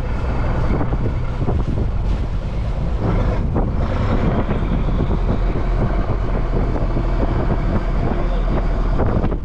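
Trawl fishing boat's engine running steadily, with wind buffeting the microphone. A few brief knocks come about two and three and a half seconds in.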